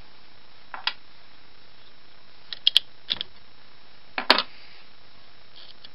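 Sparse clicks and clinks of small metal parts inside an opened Winkhaus multipoint lock case as a part is worked loose and lifted out by hand. There is one click about a second in, a quick run of clicks in the middle, and the loudest clatter about four seconds in.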